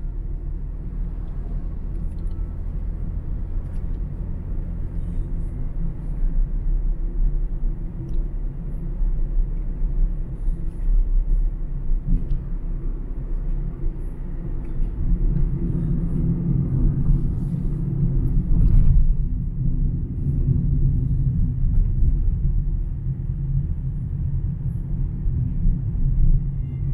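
A car driving: steady low rumble of engine and tyres on the road.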